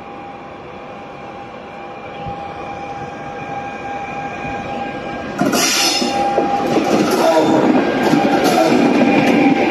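A regional passenger train hauled by an electric locomotive approaches and passes close by. A steady high whine grows slowly louder, then about five seconds in the locomotive goes past with a sudden rush of noise, followed by the coaches clattering over the rails.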